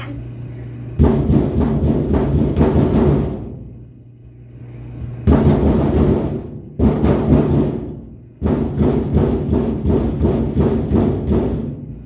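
A toddler's bare fists drumming rapid flurries of hollow thumps on the sheet-metal panel of a washing machine, like punching a speed bag. There are four bursts of a second or more each, with short pauses between.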